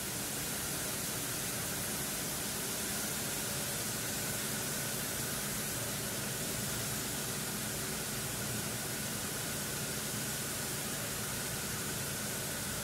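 Knitting machines running together in a textile mill's knitting hall: a steady, dense machine noise with a thin high tone held above it.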